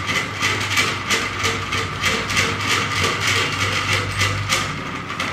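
Hand-cranked electromagnetic induction generator model being turned fast: its crank and gears rattle in rapid, regular clicks over a steady low hum, spinning the coil to induce current.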